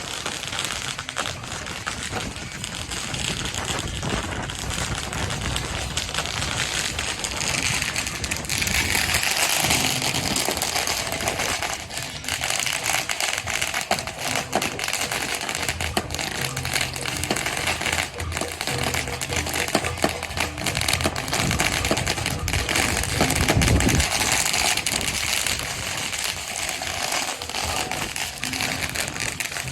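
A string of firecrackers crackling in rapid, continuous pops, with procession music underneath.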